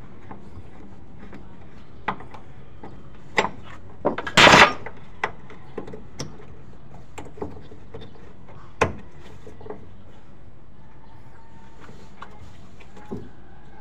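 Scattered clicks and knocks of hand tools and fittings at a fuel tank as the fuel pump is refitted, with one louder clatter about four and a half seconds in and a sharp knock near nine seconds.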